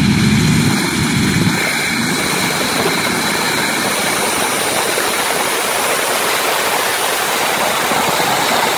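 Pulling tractor with three turbocharged Allison V-1710 V12 aircraft engines running flat out during a pull: a loud, dense, steady noise without a distinct engine note.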